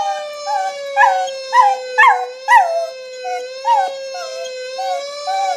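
Dog howling in short, falling, yelping notes, about two a second, over the steady, slowly wavering wail of a fire engine siren sound effect.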